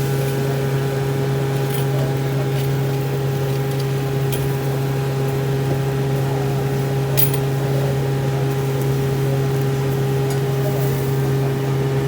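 A machine's steady hum: a strong low drone with several fixed tones above it, unchanging in pitch, with a few faint clicks.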